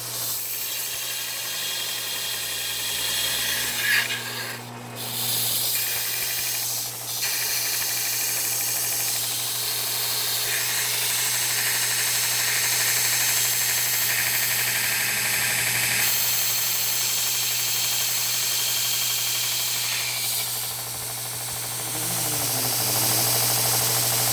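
Homemade 72x2 belt grinder running with steel pressed against the abrasive belt, a loud hissing rasp over the steady hum of the motor. The grinding breaks off briefly about five seconds in and again about seven seconds in.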